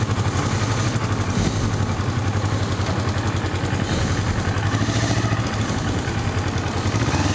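Kawasaki Ninja 250 parallel-twin motorcycle engine running steadily at low speed in slow traffic, under an even hiss of wind and road noise.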